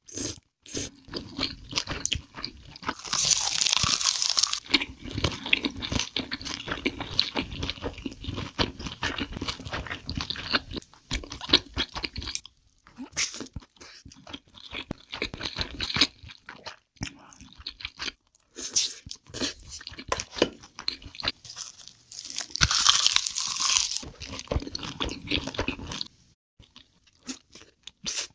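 Close-miked chewing and crunching of a mouthful of spicy fried rice with fried egg and melted cheese, irregular and crackly. There are two louder stretches of crunching, about three seconds in and again around twenty-three seconds, with brief pauses between bites.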